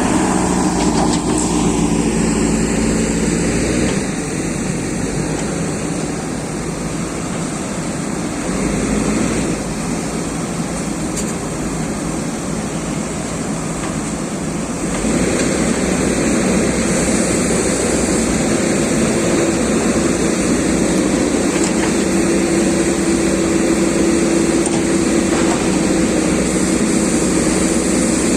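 Excavator diesel engine running. It eases off about four seconds in, then picks up again to a steady, louder drone about halfway through.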